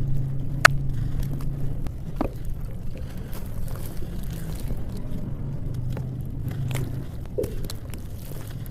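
Dry clumps of red dirt crumbling with a crunchy, gritty texture: scraping and crackling, with a few sharp cracks, the clearest about a second in and again about two seconds in. A low steady hum runs underneath.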